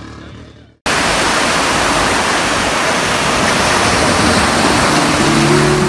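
Surf washing up on a sandy beach: a loud, steady rush of breaking waves that starts abruptly about a second in. Guitar music begins to come in faintly near the end.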